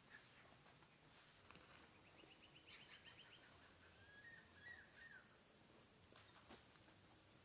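Faint birdsong: a short falling whistle, a quick trill and a few chirps, over a steady high insect buzz that sets in about a second and a half in.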